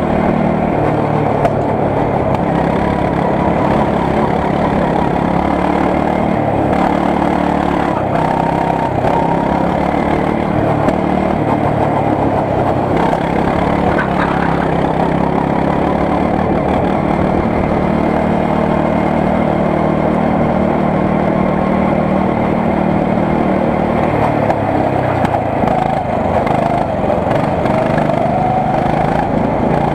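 Go-kart engine running continuously, heard from on board the kart, its pitch rising and falling with the throttle and climbing again near the end.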